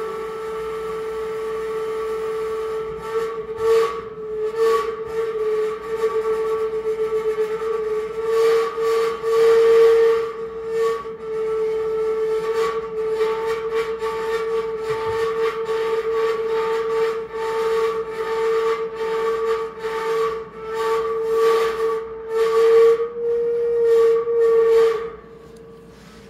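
Improvised live electronic sound: a steady, held whistle-like tone with fainter higher tones above it, overlaid with repeated bursts of hissing, crackling noise. It cuts off abruptly just before the end.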